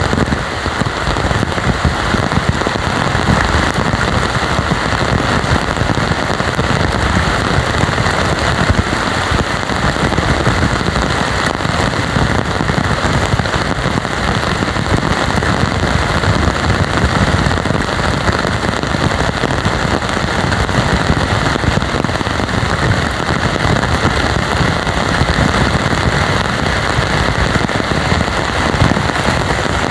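Heavy rain falling steadily: a loud, even downpour with no let-up.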